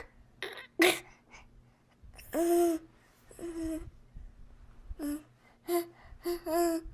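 A person making an irregular string of short involuntary vocal noises: sharp gasping breaths and brief high-pitched voiced sounds, some bending in pitch, each about half a second or less. This is the strange breathing and noises of a semi-unresponsive episode that the uploader wonders may be a seizure.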